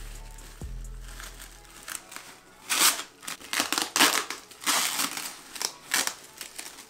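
Background music with a bass beat fades out over the first couple of seconds. Then come loud, irregular bursts of crinkling and rustling as plastic and foam packaging is pulled off a speaker.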